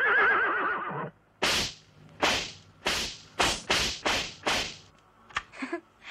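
A horse's whinny with a wavering pitch for about the first second, heard as a chariot sets off. It is followed by a run of about seven sharp, noisy cracks, roughly two a second, then a few fainter ones.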